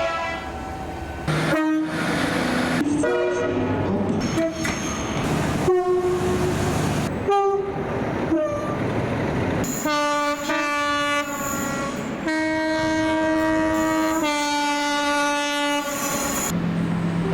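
A rapid run of short clips of British trains sounding their horns: brief horn blasts, one after another, with abrupt cuts between them and train running noise underneath. Near the end come longer held horn notes, in two or three sustained blasts.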